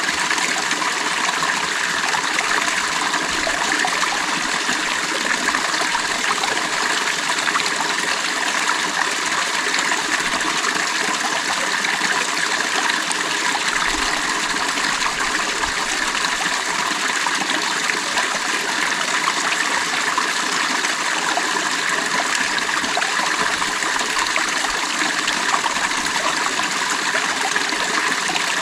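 A creek's water running and splashing over stones, a steady even rush with no let-up.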